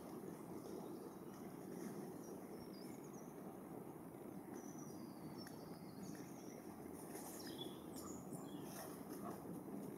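Small songbirds chirping and warbling in short phrases over a steady low background hiss, with a few light clicks near the end.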